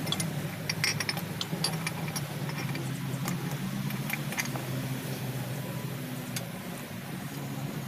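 An engine idling steadily under scattered light metallic clicks and taps, thickest in the first half, from hands and tools on the exposed rocker arms of the 8DC11 diesel during valve adjustment.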